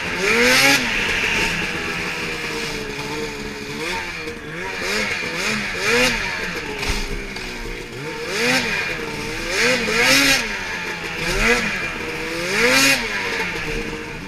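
Ski-Doo XRS 800 snowmobile's two-stroke engine under way, revving up and falling back again and again as the throttle is worked, about half a dozen strong surges.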